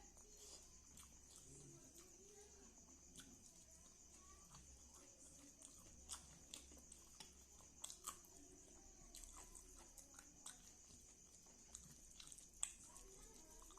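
Faint close-up eating sounds: chewing, lip smacks and soft clicks at irregular moments, the sharpest near the end. A steady faint high whine runs underneath.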